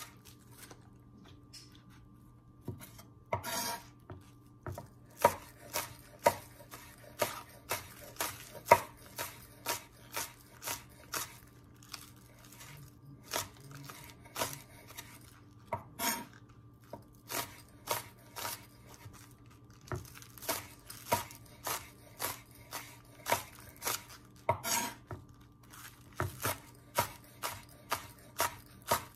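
A chef's knife chopping green onions on a wooden cutting board, a slow, uneven run of sharp knocks about one or two a second after a short pause at the start. Twice, a few seconds in and near the end, there is a longer rasp of the blade scraping across the board.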